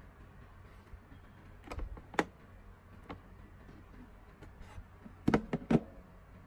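Scattered sharp clicks and light knocks over a faint steady hiss: two around two seconds in, a single one about a second later, and a quick run of four just after five seconds.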